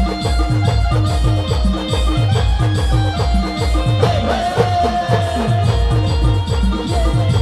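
Timli band music: a steady, driving drum beat with heavy bass thumps several times a second, under a held melody line.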